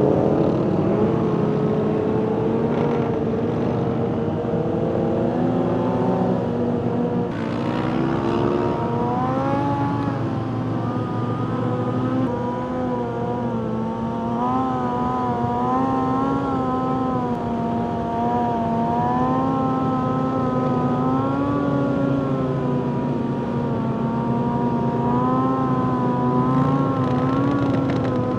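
Motorcycle engine running at fairly steady revs while riding, its pitch drifting gently up and down. About seven seconds in there is a short burst of noise, after which the engine note climbs a little.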